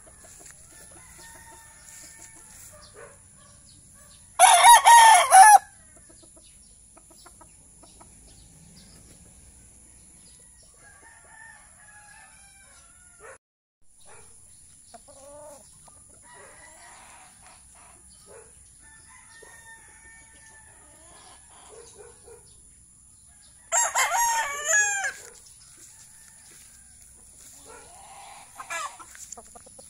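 Young gamecock stag crowing twice, each a short crow of about a second, the first about four seconds in and the second about twenty seconds later. Softer clucking calls come in between, with a fainter call near the end.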